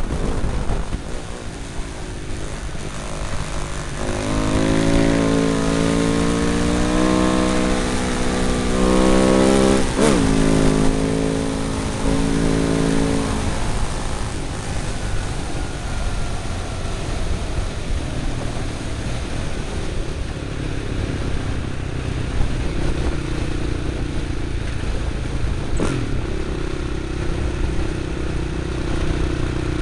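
Husaberg motorcycle engine under way, heard from a camera mounted on the bike. It pulls strongly through the gears in the first half, its note stepping at each shift, then settles to a quieter steady cruise. Wind rush runs over it throughout.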